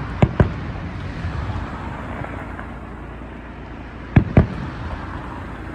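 Fireworks shells bursting: two quick pairs of sharp bangs, one pair just after the start and another about four seconds in, over a steady low background rumble.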